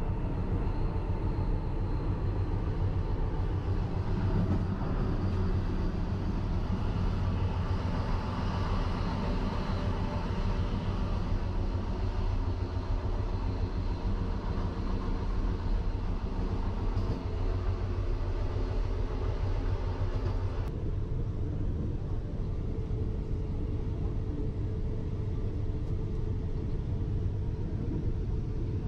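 Steady rumble of the Vande Bharat Express (Train 18), an engineless electric multiple-unit, running at speed, heard from inside the coach. About two-thirds of the way through, the higher hiss drops away suddenly, leaving mostly the deep rumble.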